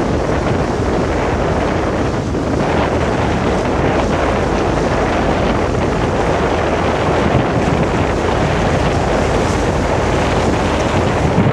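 Wind buffeting the microphone: a loud, steady rushing noise with no breaks, likely mixed with the ferry's engines and water noise.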